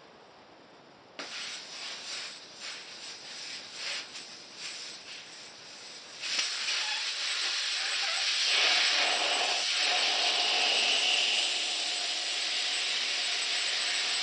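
Air hissing out of a motorcycle front tyre through its valve stem as the tyre is let down before the bead is broken. It comes first in short spurts, then from about six seconds in as a loud continuous hiss with a faint whistle in it.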